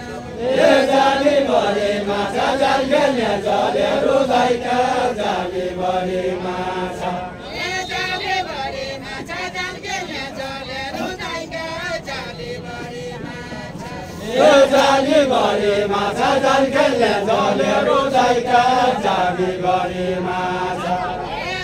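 A group singing a Nepali deuda song together as they dance in a ring, chant-like and unaccompanied. The phrase comes in loudly about half a second in, and again about fourteen seconds in, with softer singing between.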